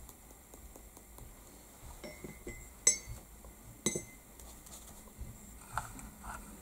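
Light tabletop handling of craft tools: a few faint ticks, then two sharp clinks of small hard objects about a second apart near the middle, each with a brief ring.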